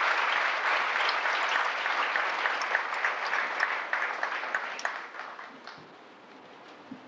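A large audience applauding, the clapping thinning out and fading away about five seconds in.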